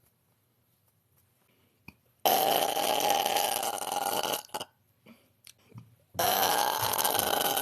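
A woman burping twice: two long, drawn-out belches of about two seconds each, the first starting about two seconds in and the second about six seconds in.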